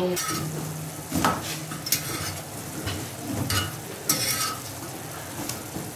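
Marinated chicken pieces sizzling in oil in a nonstick frying pan over a low flame, stirred with a silicone spatula. A steady sizzle runs underneath, with several short scrapes and knocks of the spatula against the pan.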